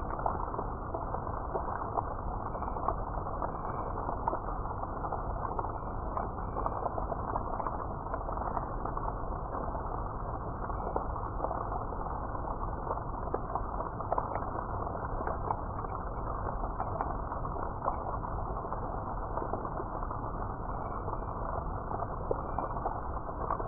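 Steady, muffled rain with no high end: a dense even rush dotted with many small ticks of drops.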